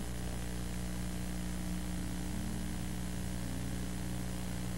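Steady low electronic hum of several even tones over a constant hiss, unchanging throughout.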